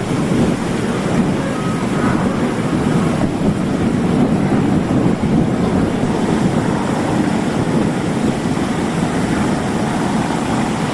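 Steady rumble of boat engines mixed with the rush of water from fire hoses spraying onto a burnt-out amphibious tour boat, with a slight break about three seconds in.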